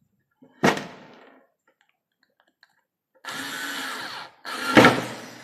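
Daewoo 3.6 V cordless screwdriver running in two short bursts of about a second each, driving a screw into semi-hard wood. It is labouring, which the user thinks may be the battery running low. There is a sharp knock less than a second in and another loud knock during the second burst.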